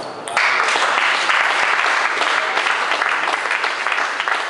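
Small crowd of spectators applauding, the clapping starting a moment in and going on steadily.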